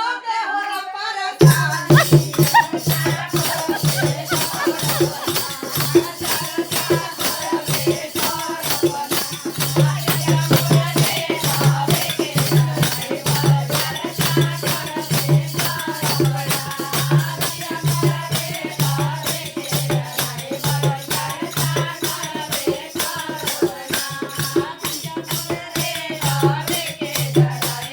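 Devotional folk song music: a voice trails off, then about a second and a half in, fast, steady shaken percussion like rattles or jingles starts up over a pulsing low note, with a melody line above.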